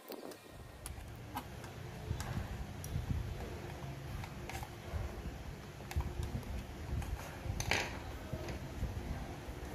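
Scattered light clicks and rubbing as the circuit board of a Sony CFS-1133S cassette radio is handled and worked with a small screwdriver, over a low rumble of handling noise.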